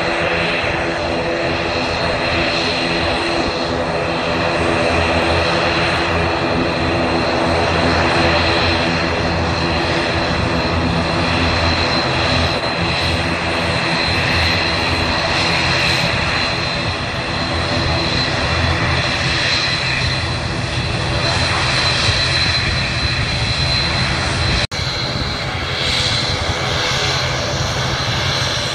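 ATR 72-212A's twin turboprop engines running as the airliner taxis. A steady propeller drone with a high steady whine above it, briefly cutting out once near the end.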